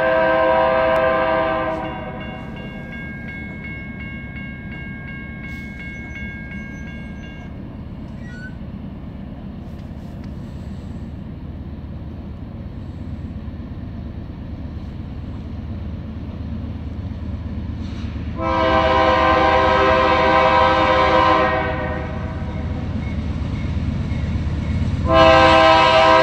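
Approaching train sounding its horn for a grade crossing: a long blast at the start, another of about three seconds some 18 seconds in, and a third starting near the end. Between the blasts the train's low rumble grows steadily louder as it nears.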